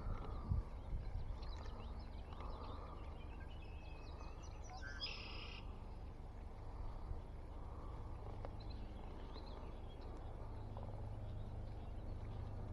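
Faint outdoor birdsong, scattered chirps over a low steady rumble, with one louder call about five seconds in and a few soft knocks just after the start.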